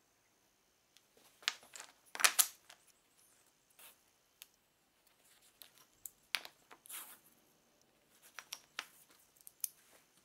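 Hands handling small wooden blocks and masking tape on a workbench: a scatter of short scrapes, taps and tearing sounds, the loudest cluster about two seconds in.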